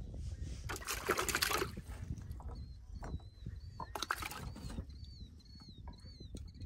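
Fish splashing in a bucket of water, in two brief bursts about a second in and about four seconds in, as the catch thrashes in a wire keep basket.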